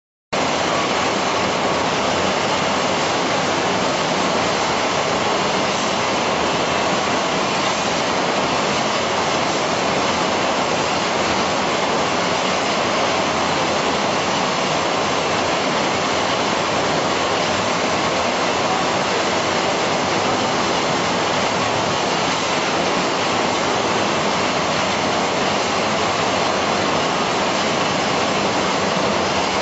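Chicken slaughter-line processing machinery running, a steady, even rushing noise with no rhythm or change.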